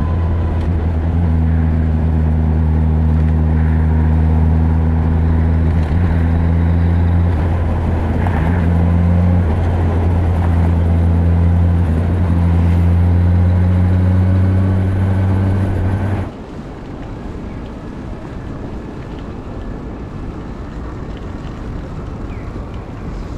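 Kawasaki ZX-10R's inline-four engine running at steady low revs, held back for engine break-in, a constant drone over wind rush. About 16 seconds in it cuts off abruptly, giving way to quieter wind and street noise.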